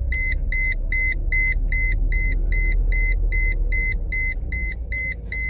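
1999 Mercedes C230 instrument cluster warning chime beeping rapidly, about four short high beeps a second, sounding even though the driver's seatbelt is fastened. Underneath is the low rumble of the idling car.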